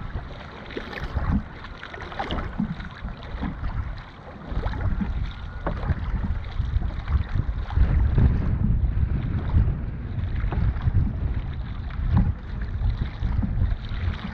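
Wind rumbling on the microphone aboard a dragon boat under way, with irregular splashes of water and paddles. The rumble grows heavier about four seconds in.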